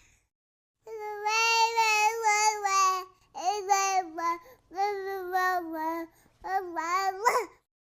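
A young child's high-pitched sing-song babbling in four short melodic phrases without clear words, starting after a brief silence and ending on a quick up-and-down squeal.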